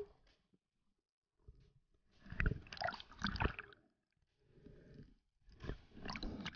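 Muffled underwater sounds of a freediver: bubbles gurgling and water sloshing around the camera in a few short bursts, with near silence between.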